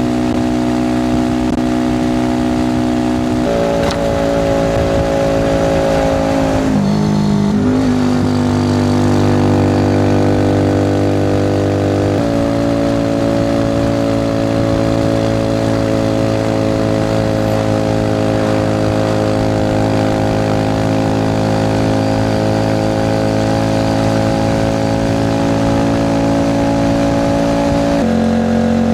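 Alpha moped's single-cylinder four-stroke engine running under way. Its pitch holds steady for stretches and steps to new levels a few times, with a short dip and climb about seven seconds in, as the revs change.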